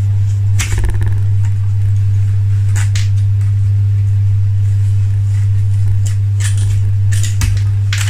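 Steady low hum throughout, with a few brief clicks and scrapes of a sharp blade trimming balsa wood stringers.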